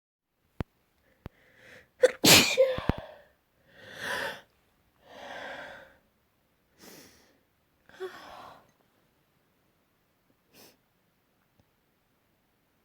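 A person sneezing loudly once about two seconds in, right after a short intake of breath, then several quieter breathy sounds. The sneezing is brought on by wood dust.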